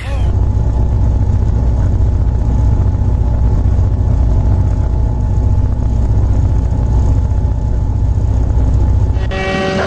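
Train running steadily with a loud, deep low rumble and a faint steady tone above it; the sound changes abruptly near the end.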